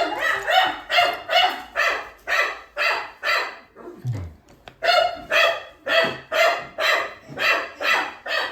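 A dog barking repeatedly in a fast, even run of sharp barks, about two and a half a second, pausing briefly about four seconds in before carrying on.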